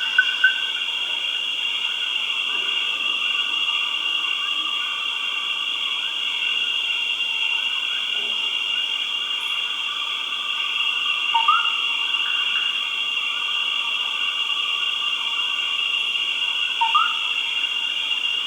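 Tropical jungle ambience: a steady, high-pitched insect drone, with a run of quick rhythmic chirps that stops just after the start and two short rising calls, one about 11 seconds in and one about 17 seconds in.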